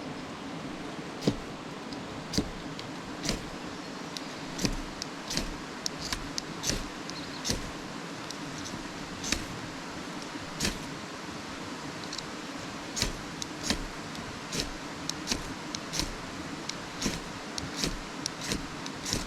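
Repeated short, sharp scraping strikes at an irregular pace of about one to two a second: a survival-kit fire striker being struck to light a fire, not catching.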